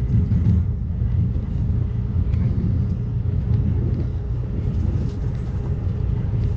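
Steady low rumble of an Amtrak Cascades passenger train running at speed, heard from inside a coach, with a faint steady hum and a few light clicks from the wheels on the track.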